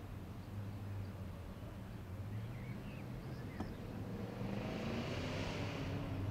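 Steady low hum of a vehicle engine running, with a rushing noise that swells and fades about five seconds in, as of a vehicle passing.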